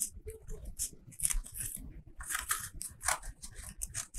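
Scissors cutting thin cardboard in a run of short, irregular snips.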